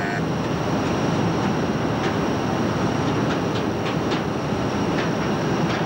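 Project 207M minesweeper underway at speed: a steady, loud rumble of the ship's machinery and the wake churning at the stern, with a few sharp clicks.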